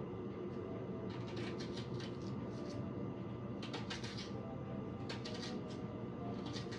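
Knife chopping an onion on a cutting board, the strokes coming in short irregular runs, over a steady background hum.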